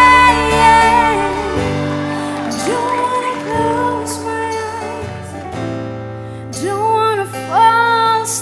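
Background music: a slow song with a singing voice holding long notes that glide up and down over a steady accompaniment.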